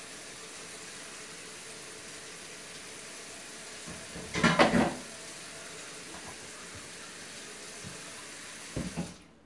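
Kitchen faucet running steadily into the sink while the air fryer basket is washed, with a loud clatter of the basket against the sink about halfway through and another short knock near the end. The water cuts off suddenly just before the end.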